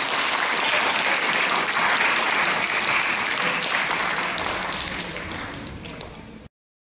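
Audience applauding, the clapping slowly dying away over the last couple of seconds before it cuts off suddenly near the end.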